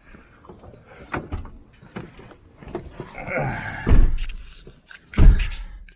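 Vehicle doors slammed shut twice, a second or so apart, after some lighter knocking and rattling.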